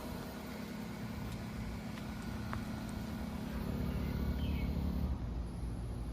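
Outdoor air conditioner condensing unit running: a steady low hum with fan noise. The hum drops out about five seconds in, leaving a low rumble.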